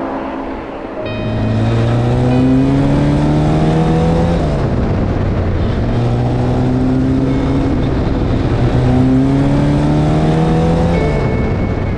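A 1954 Austin-Healey 100M race car's 2.7-litre inline-four accelerating hard, its note climbing and then falling back twice, as at gear changes: about four seconds in and again near the end.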